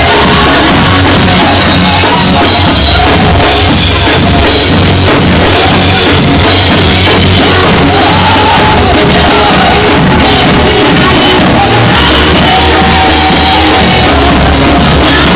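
Loud music with a drum kit and bass, and singing voices.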